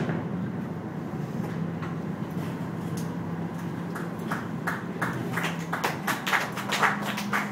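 Scattered hand claps start about four seconds in and thicken into light applause as the fireworks display ends. Under them runs a steady low hum from the boat's engine, which rises slightly in pitch near the end.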